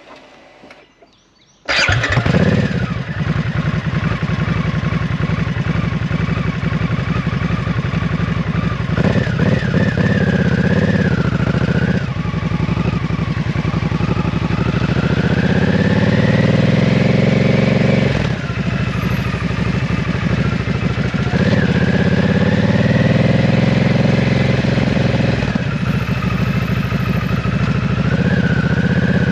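2023 Harley-Davidson Nightster Special's Revolution Max 975T V-twin, heard through an S&S Grand National slip-on muffler. It starts up about two seconds in and then runs. Its revs climb steadily and drop abruptly several times as the bike pulls away through the gears.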